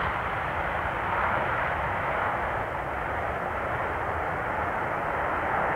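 Steady jet noise from English Electric Lightning fighters as a pair take off, a continuous rushing sound with no sharp changes.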